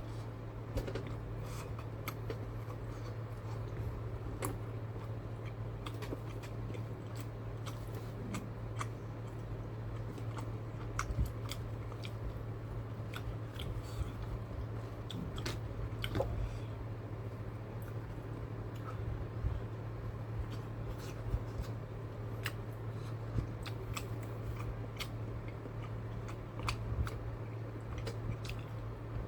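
A person chewing a mouthful of rice and bean burrito, with many short, scattered wet mouth clicks over a steady low hum.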